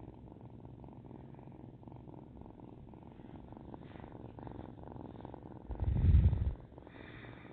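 A kitten purring steadily and close, a fine fast rattle that runs on without a break. About six seconds in comes a brief, loud, low rumble that is much louder than the purr.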